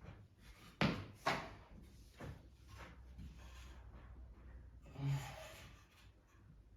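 Solid pine bed parts being pressed together by hand onto wooden dowels: two sharp wooden knocks about a second in, then a softer knock and wood rubbing against wood, with a louder scrape or creak about five seconds in.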